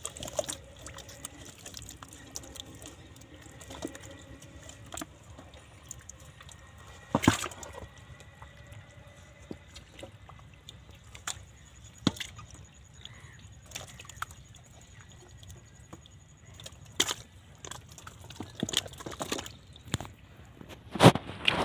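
Wet mud and water sloshing and splatting as thick mud is scooped and thrown with metal bowls, in irregular slaps and knocks, with louder smacks about seven seconds in and near the end.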